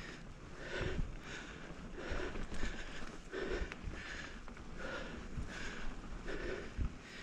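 A mountain biker breathing hard and rhythmically while pedalling, short puffs of breath about two a second, with low knocks as the bike rolls over the dirt trail.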